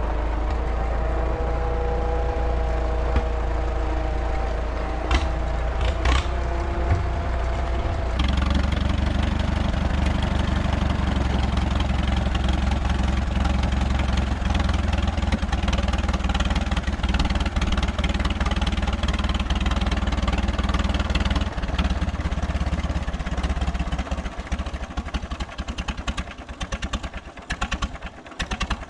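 1937 Farmall F20's four-cylinder engine running through a bare exhaust stack with no muffler as the tractor is driven, with a few sharp knocks between about five and seven seconds in. Near the end it slows to separate, uneven firing pulses. The engine is running rich from a flooding carburetor, as the owner says.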